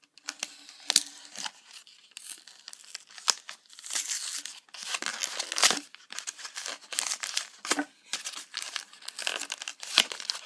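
A Pokémon trading card booster pack's foil wrapper being torn open by hand, crinkling and crackling in irregular bursts of sharp ticks, busiest about four to six seconds in. The wrapper is stiff and hard to tear.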